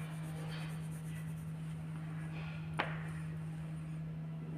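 Faint scratchy strokes of a pen colouring on paper over a steady low hum, with one sharp tap a little after the middle.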